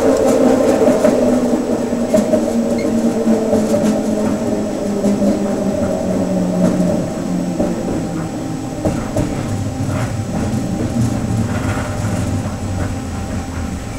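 Detroit People Mover car's linear induction motor whine, its pitch falling steadily as the train slows toward a station, with a few light clicks from the guideway.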